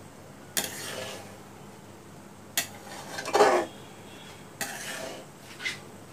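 Metal spatula scraping and knocking against a metal pan while stirring amla in sugar syrup: four or five separate strokes, the loudest about three and a half seconds in.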